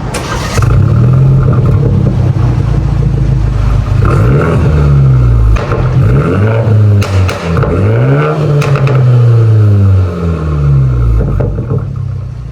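BMW G20 330i's turbocharged four-cylinder engine revving through a full aftermarket exhaust, its pitch rising and falling several times in the middle before settling back to a steady drone.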